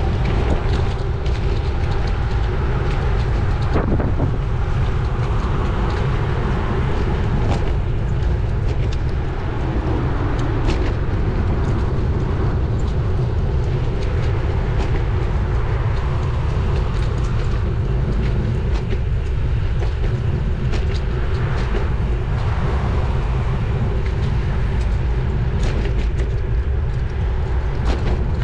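Steady low rumble of wind and road noise on a bicycle-mounted camera while riding a road bike, with a few faint sharp clicks.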